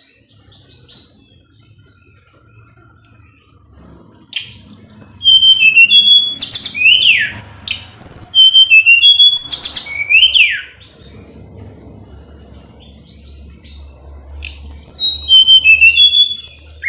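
Tledekan gunung (blood-breasted flowerpecker) singing: bouts of rapid, high-pitched chirps and quick sweeping notes, the first starting about four seconds in and lasting some six seconds, the second starting near the end.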